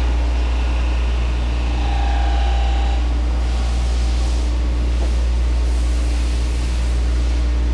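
ANCA CNC tool grinder running, grinding a carbide end mill under a coolant spray. There is a steady low machine hum with an even spray hiss that grows stronger about halfway through, and a faint held tone briefly about two seconds in.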